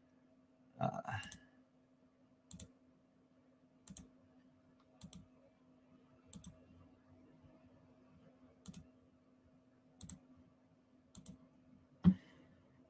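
Faint single computer mouse clicks, one every second or so, about eight in all, with a louder click near the end, over a low steady electrical hum. A brief murmur of voice about a second in.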